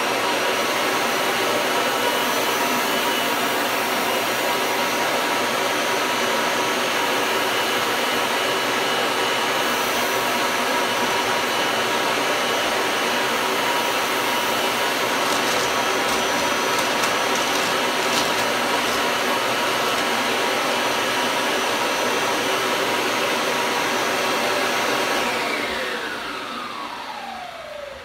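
Kirby Ultimate G Diamond Edition upright vacuum with its 7-amp motor running steadily through the attached hose and hard-floor tool, sucking up coffee grounds from a tile floor. About 25 seconds in it is switched off and the motor winds down with a falling whine.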